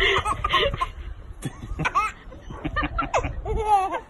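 A baby laughing in short bursts.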